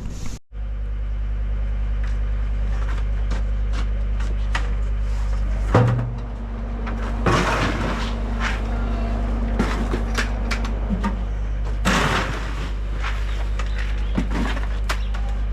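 An engine running steadily with a low hum, with several clunks and knocks over it, the loudest about six seconds in and again near twelve seconds.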